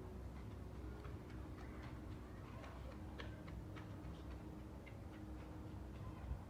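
Faint, irregular clicks and ticks, bunched in the middle, over a steady low background hum.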